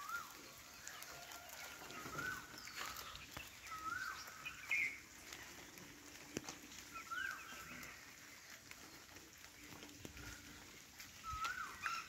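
Indian peafowl (peacock) giving short calls over and over at irregular intervals.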